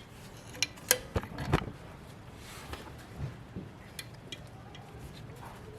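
Metal clinks and clicks of drum brake hardware, the top return spring and brake shoes being worked into place: a cluster of sharp clicks in the first second and a half, then a few lighter ticks about four seconds in.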